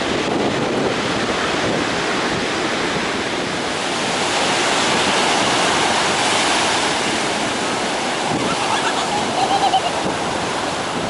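Pacific Ocean surf breaking and washing up the beach as a continuous rush, swelling about halfway through.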